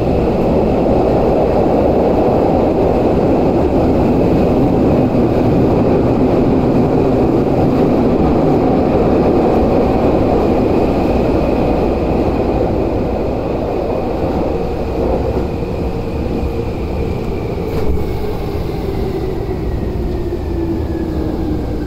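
Tokyu 8500 series subway train heard from inside the car, running loud through a tunnel and slowing into a station: a heavy rumble of wheels and running gear under a traction-motor whine that holds steady, then falls in pitch over the last ten seconds as the train brakes. One sharp knock comes about eighteen seconds in.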